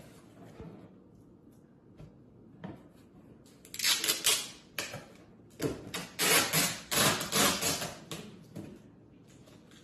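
Cardboard box being worked open by hand: scratchy scraping and tearing in short rapid bursts, once about four seconds in and again for a couple of seconds just after the middle.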